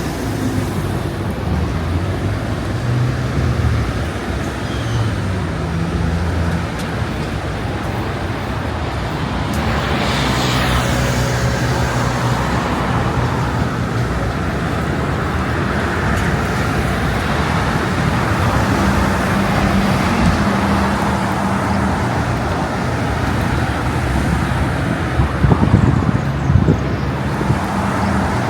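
Street traffic: motor vehicles running and passing, one passing close about ten seconds in, with a few short thumps near the end.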